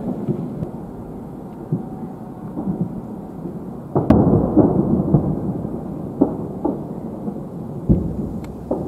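Fireworks shells bursting overhead, their booms running together into a rolling rumble. The loudest bang comes about four seconds in, and several sharper bangs follow.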